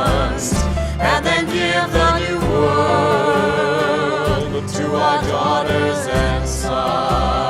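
Background music: a slow ballad in which several voices hold long notes with vibrato over a steady bass backing.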